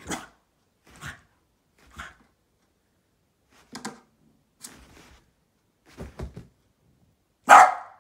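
Small white spitz-type dog giving short woofs and huffs about once a second, then one loud bark near the end.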